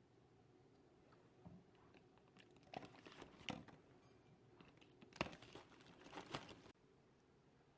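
Faint handling noise of plastic shaker bottles and a snack can being packed into a soft cooler bag: a few sharp plastic clicks and knocks, the loudest about five seconds in, with light rustling.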